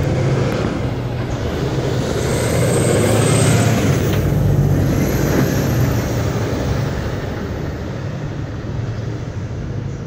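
Road traffic: a motor vehicle's engine hum and tyre noise, growing louder to a peak around three to five seconds in and then easing as it passes.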